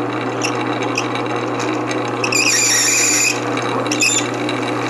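Small bench metal lathe running with a twist drill cutting into a spinning Maytag engine carburetor cap, the motor humming steadily under the noise of the cut. A high squeal from the bit comes in a little past two seconds and lasts about a second, with short scrapes before and after; the bit is cutting dry, without oil.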